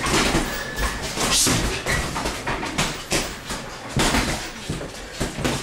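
Boxing sparring: gloved punches smacking on gloves, headgear and body, with feet scuffing on the ring floor, in irregular sharp knocks a few times a second.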